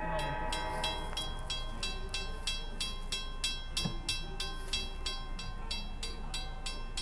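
Railroad crossing bell ringing steadily, about three strikes a second, while the crossing signals flash: the warning that a train is approaching and the gates are about to come down.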